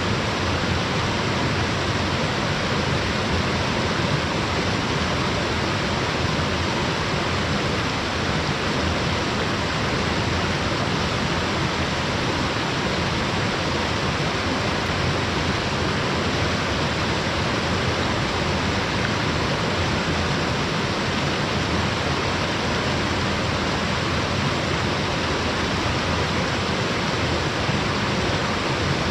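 Waterfall rushing: a steady, unbroken noise of falling water, spread evenly from low to high pitches.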